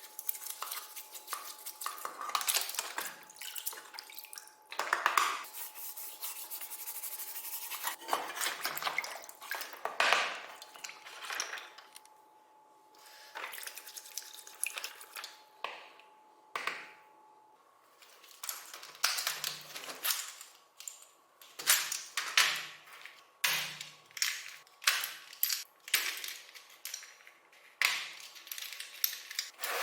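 Small hard parts, likely keyboard keycaps and pieces, clicking and clattering as they are handled, with a stretch of even hiss in the first third.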